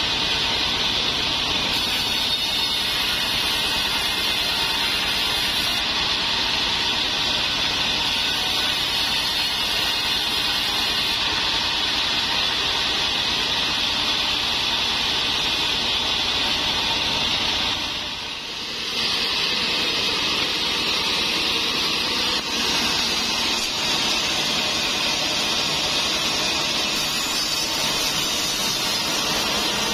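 Large sawmill bandsaw, driven by a stationary engine, running steadily while its blade saws trembesi (rain tree) timber. The sound dips briefly about eighteen seconds in.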